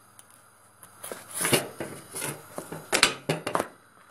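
A quick run of sharp, irregular knocks and clatters, beginning about a second in and stopping shortly before the end.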